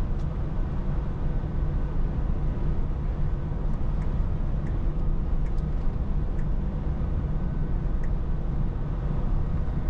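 Scania S450 truck's 13-litre inline-six diesel and tyres running steadily at road speed, a constant low drone.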